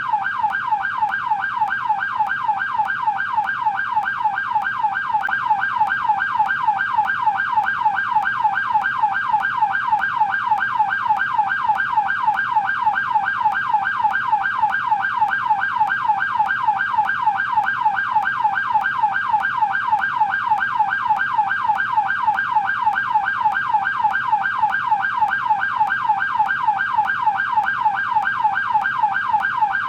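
American police car yelp siren, sweeping rapidly up and down in pitch several times a second at an even, unbroken pace.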